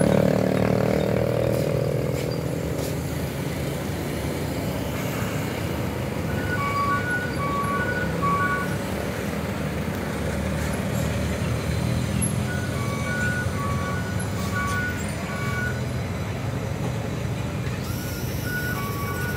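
Traffic climbing a steep hairpin bend: truck diesel engines with car and motorbike engines in a steady drone, loudest at the start and easing off over the first couple of seconds. An electronic beeping alarm alternating between two pitches sounds in three spells of about two to three seconds each.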